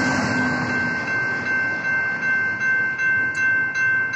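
A pair of General Signals Type 2 railroad crossing bells ringing steadily, pulsing about two to three times a second, over the rumble of a passing passenger train that dies away in the first second.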